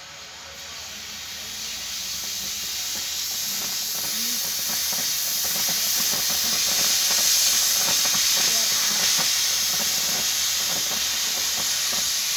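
Loud, steady hiss of steam venting under pressure. It builds up over the first several seconds and then holds strong.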